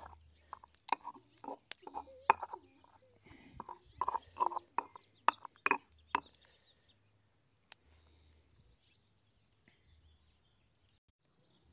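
Stone pestle clacking and grinding against a stone molcajete as tomato and chile salsa is mashed, a run of sharp knocks and wet scrapes that stops about six seconds in. After that, one faint click.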